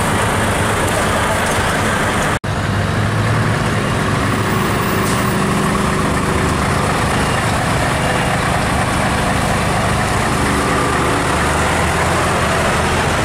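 Heavy truck diesel engines running steadily at low revs as tractor units roll slowly past: first a Volvo FH, then, after a sudden cut about two seconds in, a Scania S-series V8.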